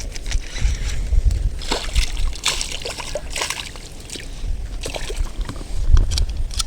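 Water splashing and sloshing in irregular bursts while a hooked snakehead is being fought, with gusts of wind rumbling on the microphone.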